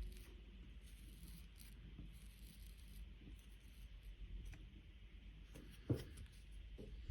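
Faint scratching and rubbing handling noises over a low steady hum, with one sharp knock about six seconds in.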